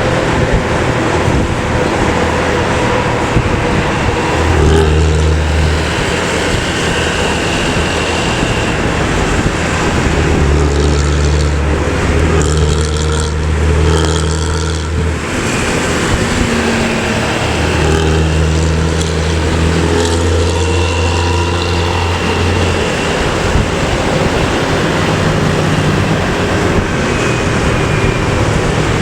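Highway traffic with a rear-engined coach's diesel and its deep 'ngorok' (snoring) exhaust rumbling. The rumble swells and fades several times, longest in the middle.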